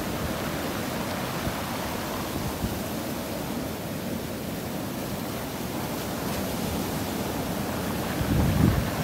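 Rough sea surf breaking and washing up a pebble beach, a steady rushing noise. Near the end, gusts of wind buffet the microphone.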